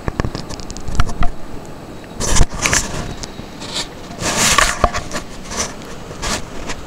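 Handling noise on the camera's microphone: irregular rubbing and scraping with scattered sharp knocks as the camera is moved about. The loudest rustles come about two and a half seconds in and again a second or two later.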